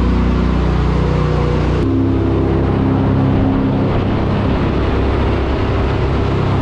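Jet boat's engine running steadily under way, with water and wind rushing past the hull. The engine note changes abruptly about two seconds in.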